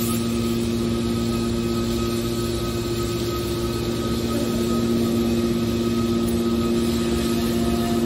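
Hydraulic scrap metal baler running: a steady hum from its hydraulic pump and motor with a constant pitch, getting a little louder about five seconds in.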